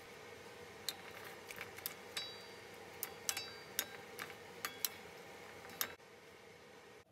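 Two wooden spatulas clicking and tapping against a wok while tossing stir-fried morning glory: a dozen or so sharp, irregular taps between about one and six seconds in, over a faint steady hiss.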